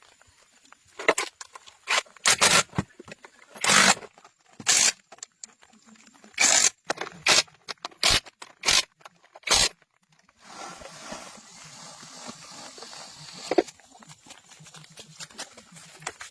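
About a dozen short, loud scraping strokes, spaced irregularly, then several seconds of steady rough scraping noise.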